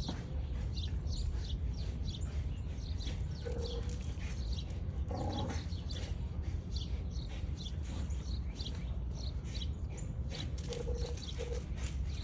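American Bully dogs playing rough on dry grass: paws scuffling and thudding in quick, irregular steps, with a few short pitched sounds from the dogs.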